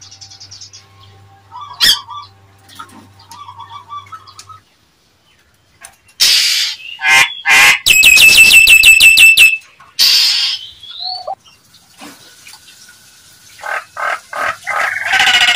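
Nias hill myna calling: loud whistles and harsh squawks in two bouts, the first about six seconds in with a fast, even run of repeated notes, the second near the end.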